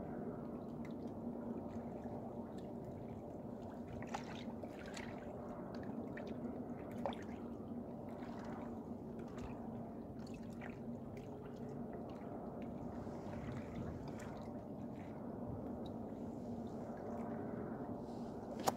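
Steady low hum with scattered small wet-sounding clicks and drips. One sharper click about seven seconds in and another right at the end.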